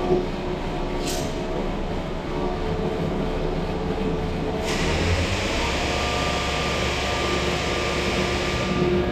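Dairy milking plant machinery running steadily as a low hum with steady tones. About five seconds in, a loud hiss joins it, during the line-purging and wash cycle, and stops near the end.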